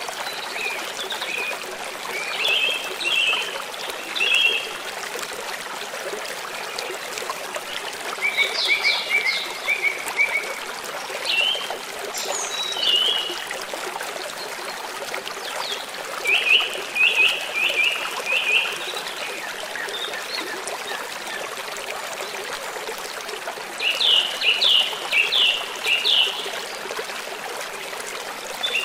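Running stream water, a steady rush. Over it, birds call in bursts of quick, repeated short high notes that come every few seconds.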